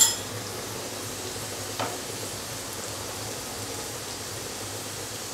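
Fish roe fry sizzling steadily in a nonstick frying pan, with a single short metallic clink at the very start.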